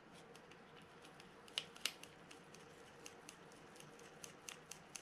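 Faint small clicks and ticks as the threaded top cap of a Penn Clash 8000's handle knob is screwed back in, with two sharper ticks about one and a half to two seconds in.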